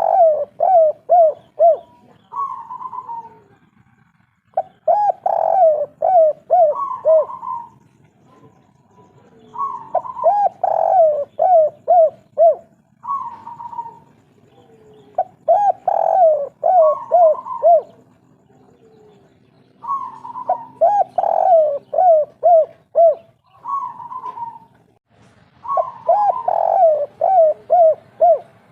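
Spotted dove (derkuku) singing its 'kuk 3' song: about six phrases roughly five seconds apart, each a higher opening coo followed by a quick run of five or six lower coos.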